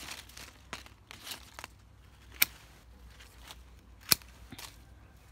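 Hand pruning shears snipping through pomelo twigs: two sharp snips about a second and a half apart, with a few softer clicks before them.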